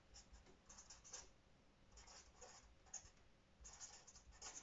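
Felt-tip marker writing on paper: faint, short scratchy strokes in quick clusters with brief pauses between words.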